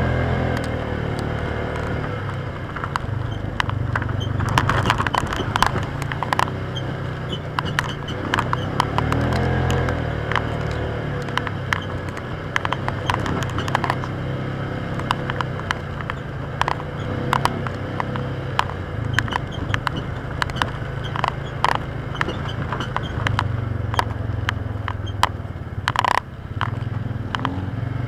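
Polaris Ranger side-by-side engine running steadily as it drives a trail, with frequent sharp knocks and rattles throughout and a louder knock near the end.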